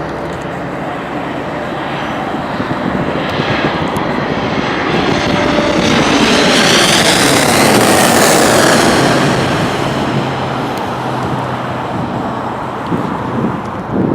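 Jet airliner passing low near the airfield, its engine noise swelling to a peak about eight seconds in, then fading, with a whine that shifts in pitch as it goes by.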